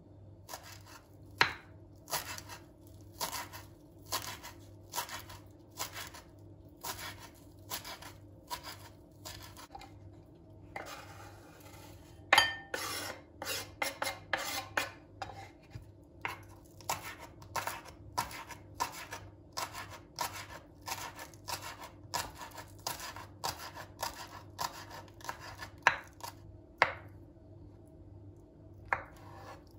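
Knife chopping on a cutting board in steady strokes, about two a second, with a brief scraping pause and a few harder knocks partway through.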